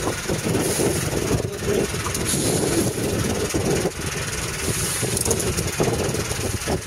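A boat's engine running steadily, a low rumble with a hiss of water and wind over it.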